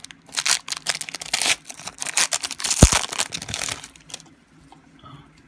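The plastic wrapper of a basketball card pack crinkling and tearing as it is opened, in a dense crackle that stops about four seconds in.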